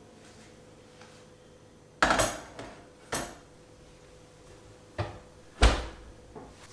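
Kitchenware being handled: dishes and cutlery knocking and clinking, four separate clatters, the loudest near the end.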